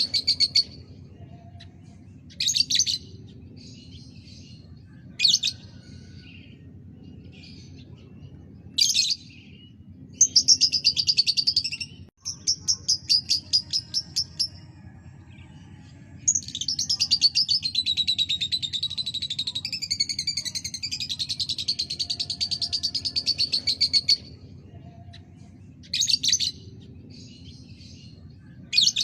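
Lovebird chirping in short high bursts, breaking into a fast run of trilled notes about ten seconds in and a long, unbroken trilling song of about eight seconds in the middle, the rapid chatter used as a lure to set other lovebirds singing.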